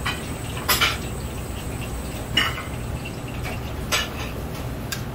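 Metal tongs clinking against a large aluminium stockpot while stirring and separating a big batch of boiling spaghetti: a handful of sharp metallic clinks, spaced about a second or more apart, over the steady low rumble of the boiling pot.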